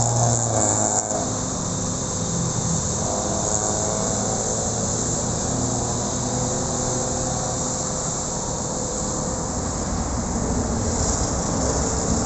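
Doosan wheeled excavator's diesel engine running steadily under load while it digs, with a faint hydraulic whine that rises and falls in pitch at times as the boom and bucket move.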